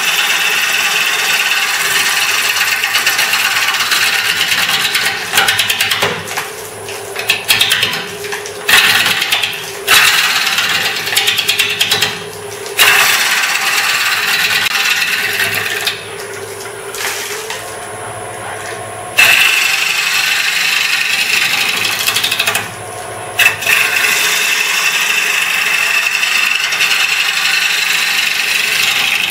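Turning tool cutting into a spinning ash bowl blank on a wood lathe, roughing it round: long stretches of steady scraping cut broken by several short pauses, the longest about three seconds near the middle, each cut starting again abruptly.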